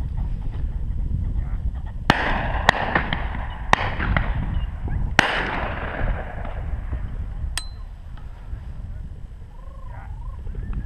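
Four shotgun shots in quick succession from other guns on the shoot, the first about two seconds in and the last about five seconds in, each trailing off in a fading echo. Steady wind rumble on the microphone sits underneath.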